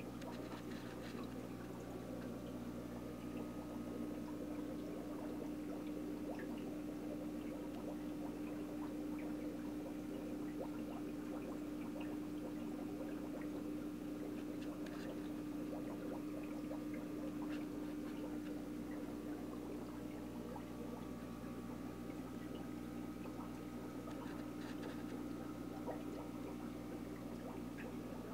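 Aquarium filter running: a steady trickle of water over a constant hum.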